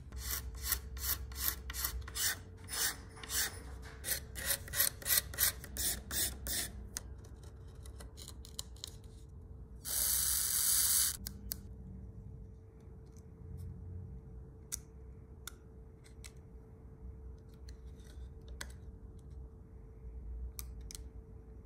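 Quick, even rasping strokes of hand work, filing or abrading, about three a second for about seven seconds. About ten seconds in comes a loud hiss lasting a little over a second, then scattered light clicks and taps.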